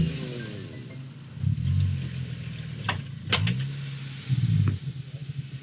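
Jeep Wrangler engine revving in three short bursts as the driver tries to back off a rock ledge the Jeep is hung up on by its differential, with a couple of sharp knocks about three seconds in.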